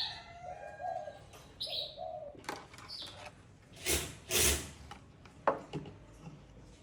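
Small birds chirping with short falling calls and doves cooing in the background. About four seconds in come two short, loud hissing bursts from an unseen source, then a sharp click.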